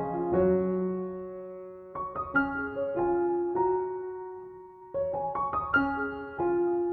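Background piano music: soft notes and chords struck every second or so, each left to ring and fade.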